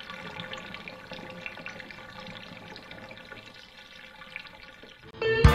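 Water running quietly from a tap into a bathroom sink, with small drips and splashes. Just before the end a short rising note leads into loud band music with electric guitar.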